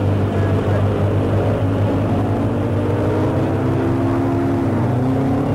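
A car's engine revving hard under acceleration over a steady low hum. Its pitch climbs slowly, then drops away about four and a half seconds in.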